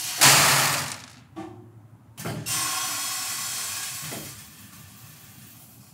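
Beans dumping from a precision fill machine's discharge funnel into a plastic bucket, a short loud rush. Then, from about two seconds in, the machine's feeder running with beans pouring through it, a steady hiss with a faint buzz that drops away about four seconds in.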